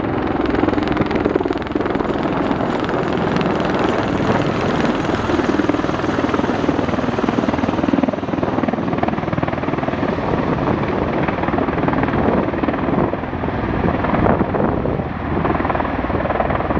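V-22 Osprey tiltrotor flying overhead, its proprotors and engines making a loud, steady rotor noise that rises and falls only slightly.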